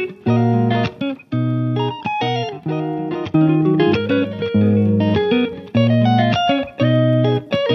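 Background instrumental music: plucked notes over a low bass line in a steady rhythm.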